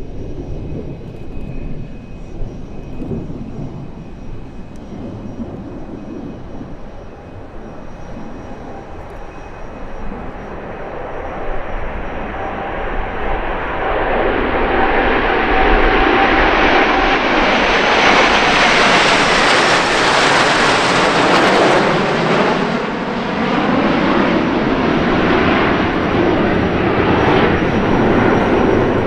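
A flight of airplanes passing low overhead. The engine noise builds over several seconds to a loud peak about two-thirds of the way in, eases, then swells again near the end.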